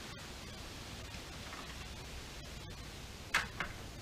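Quiet steady background hiss, with one brief sharp sound a little over three seconds in and a smaller one just after.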